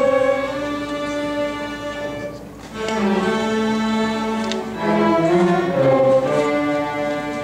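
Student string orchestra of violins and cellos playing held, bowed notes. The sound drops away briefly about two and a half seconds in, then comes back with the low strings entering.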